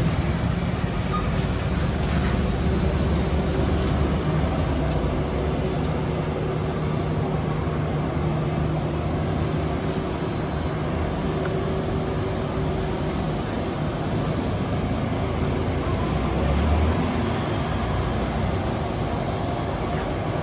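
City street traffic noise: vehicle engines running and cars passing in a steady wash, with a steady low hum underneath and a brief low swell near the end.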